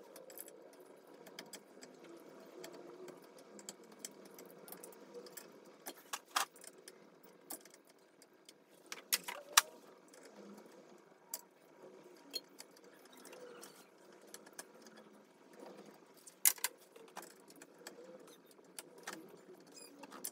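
Scattered small metallic clicks and taps of ceiling fan blade screws and the blade's metal mount being worked loose by hand, with a few sharper clicks about six, nine and sixteen seconds in.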